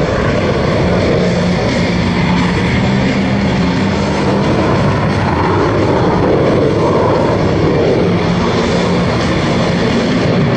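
Steady, loud jet noise from a KAI T-50 Golden Eagle's single F404 turbofan as it flies a display pass, with a low hum held underneath.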